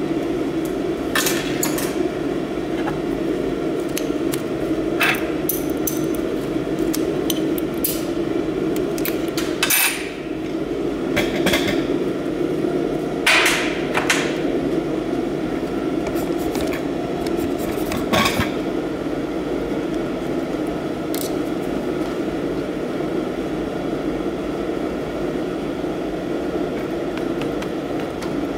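Scattered metallic clinks and knocks as a magnetic-base TIG torch holder and a TIG torch are handled against a steel welding table, over a steady low hum.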